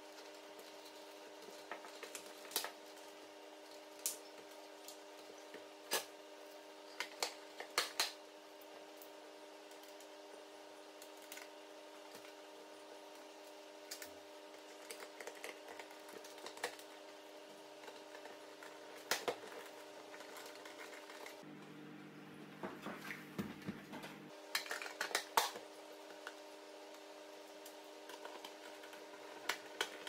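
Scattered clicks and knocks of plastic and metal parts as a Nespresso coffee machine's casing is fitted back together and its panel screws are turned with a hand screwdriver, with a denser run of knocks a little past the middle. A faint steady hum sits underneath.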